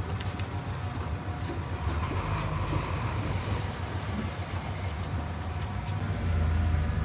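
Diesel engine of heavy earthmoving machinery running with a steady low rumble, with a few sharp clanks at the start; the engine gets louder about six seconds in.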